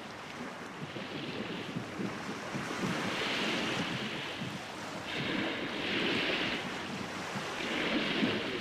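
Sea water washing and splashing steadily, with a hissing surge about every two seconds.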